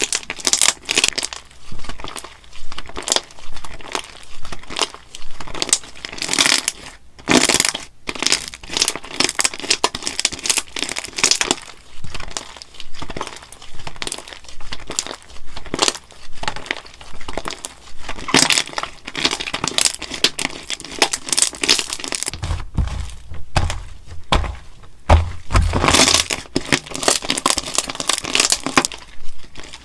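Crunchy slime being squeezed and pressed by hand, giving dense bursts of crackling and popping in quick succession. There are a few deep thuds about three-quarters of the way through.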